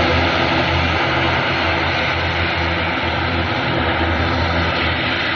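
Aircraft engines running loud and steady: a broad rush over a deep low hum, easing slightly near the end.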